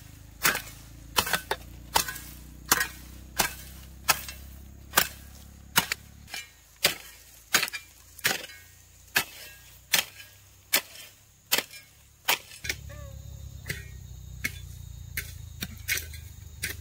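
Hand hoe chopping into soil and weeds: a steady run of sharp strikes, roughly one and a half a second, the later ones a little fainter.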